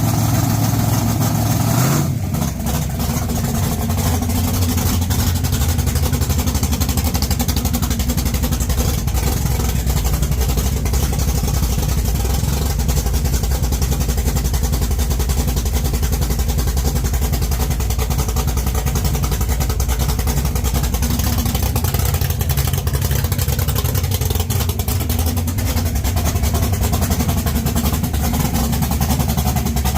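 1969 Camaro drag car's engine running loudly: it drops from a faster idle to a lower one about two seconds in, then idles steadily with a fast, even pulse.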